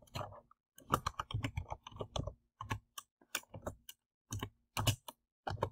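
Typing on a computer keyboard: a quick, irregular run of key clicks, with a short pause about two-thirds of the way through.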